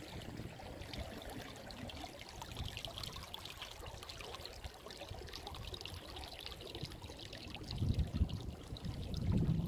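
Water splashing and trickling along the hull of a boat moving across a lake. Wind gusts on the microphone from about eight seconds in.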